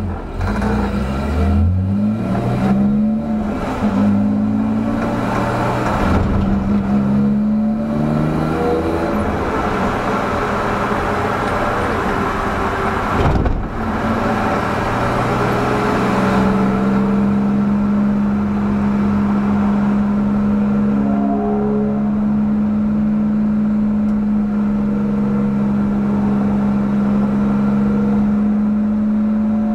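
BMW 325i's 2.5-litre straight-six engine at full throttle inside the stripped cabin. In the first half it climbs through the revs several times with quick upshifts, then drops back, with one sharp thump about halfway through. For the second half it holds a steady, unchanging note under load.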